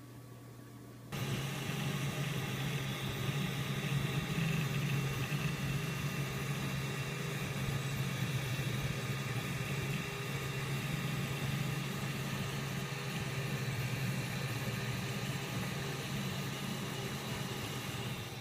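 3D printer running: a steady mechanical hum of motors and fans with faint steady whining tones, starting abruptly about a second in.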